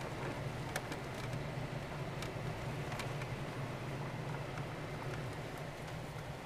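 Steady drone of a car's engine and tyres heard from inside the cabin while driving, a low hum with a few scattered faint ticks.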